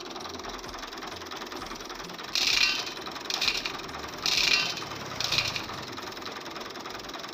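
Loose wheat grains rattling in and out of a small plastic bowl as it is tipped and emptied, in four short rustling bursts about a second apart.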